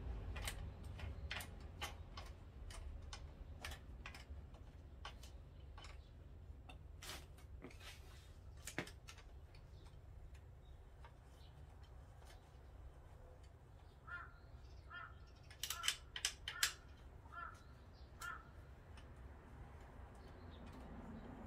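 Scattered sharp clicks and knocks of a bicycle being worked on by hand as the wheel and chain are taken off, then, about two-thirds of the way through, a crow cawing about seven times.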